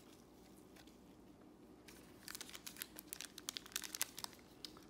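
Foil Panini Select baseball card pack crinkling and tearing as it is opened, a run of sharp crackles starting about two seconds in.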